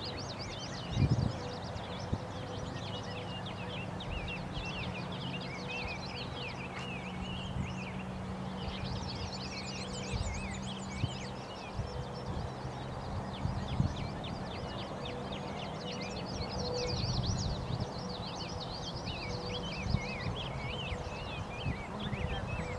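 Many birds singing and chirping at once in a dense, continuous chorus, over a steady low hum with a few low thumps.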